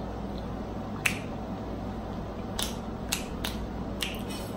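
Close-up chewing of a mouthful of fried, sugar-coated Korean corn dog with the mouth closed: about half a dozen short, sharp mouth clicks and smacks, scattered from about a second in to the end.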